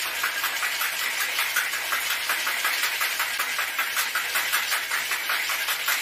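Ice rattling inside a lidded cocktail shaker being shaken hard, a fast, even rattle of several strokes a second.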